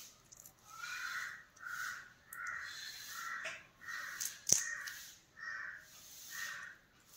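A crow cawing over and over, about eight harsh caws evenly spaced, with one sharp click about four and a half seconds in.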